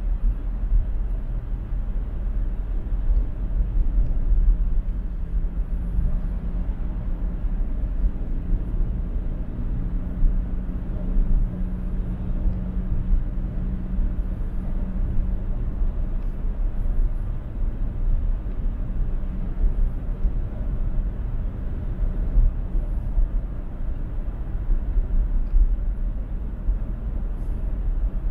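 Steady highway driving noise of a car at speed, mostly deep road and tyre rumble. A low steady hum rises over it about four seconds in and fades out after about sixteen seconds.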